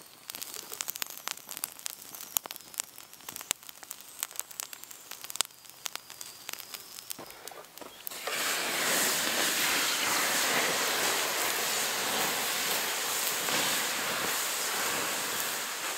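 Campfire embers crackling with scattered sharp pops; about eight seconds in, water is poured onto the hot embers and they hiss loudly and steadily as the fire is doused.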